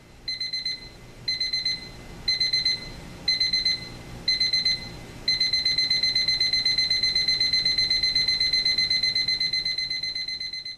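Advance 4238 digital alarm clock's electronic beeper sounding its alarm. It gives short groups of rapid high beeps about once a second, then about five seconds in it changes to continuous fast beeping.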